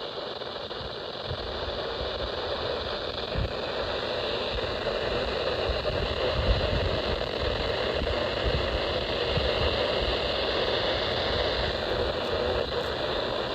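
Steady hiss of radio static from a weather-radio receiver on a weak signal, with an uneven low rumble underneath; it grows a little louder over the first few seconds.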